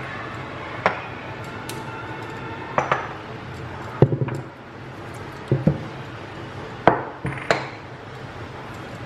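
Ceramic figurines, a glass jar, a marble mortar and other small ornaments being lifted off a wooden stand and set down on a hard kitchen counter: a string of separate clinks and knocks at uneven spacing, with a quick cluster of them about four seconds in.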